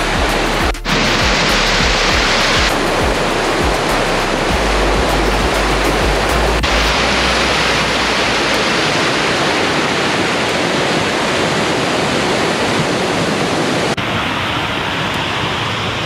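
Shallow stream water rushing over sandstone rock and down a small cascade, a loud steady rush heard close up. It changes abruptly in tone a few times, and a low wind rumble on the microphone runs through the first half.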